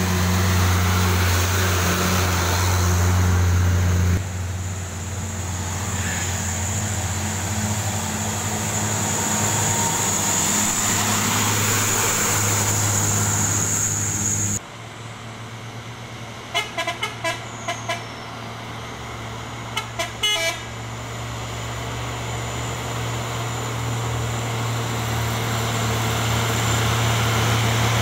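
Heavy Nissan Condor trucks' diesel engines running as they creep past at close range, loudest at first. In the quieter second half come a quick run of short horn toots and then, a few seconds later, a few more.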